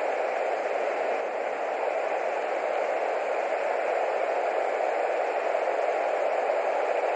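Steady rain falling, an even hiss with no single drops, calls or knocks standing out.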